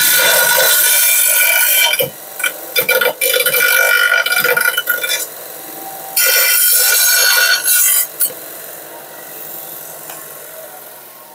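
Electric abrasive power tool grinding on steel: a high motor whine with a gritty hiss, in long passes broken by short gaps. Near the end it leaves the metal and the motor's hum fades away.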